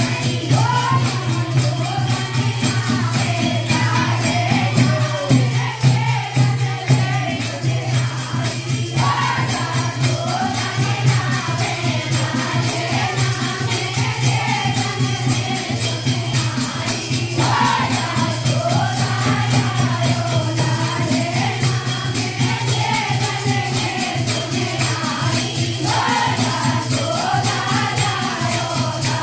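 Indian devotional folk song: a singing voice carrying a wavering melody over fast, even jingling percussion like a tambourine, with a steady low drone beneath.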